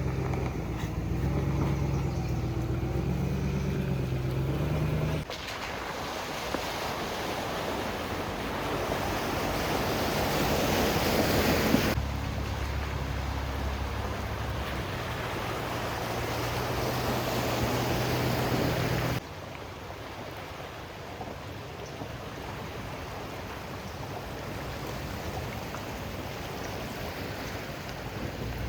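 Off-road SUV engine running at low revs, in short cut-together clips alternating with stretches of wind rushing on the microphone. The engine is heard for the first few seconds and again in the middle. Wind noise swells between those parts and fills the last third more quietly.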